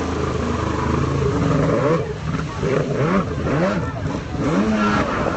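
Jet ski engines running steadily, then from about two seconds in revving up and down over and over, the pitch rising and falling in quick arcs as the craft turn through their stunts.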